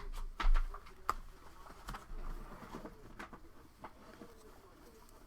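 Scattered light clicks and taps of trading cards and plastic card holders being handled on a table, with a louder low thump about half a second in.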